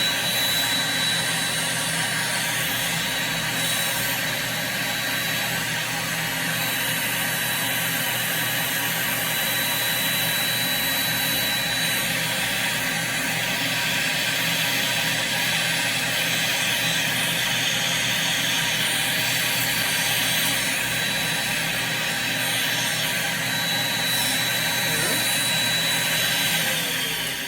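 A podiatry micromotor with a plantar sanding disc and its built-in dust-extractor fan running together: a steady rushing hum with a thin high whine. Near the end the whine drops in pitch as the machine winds down.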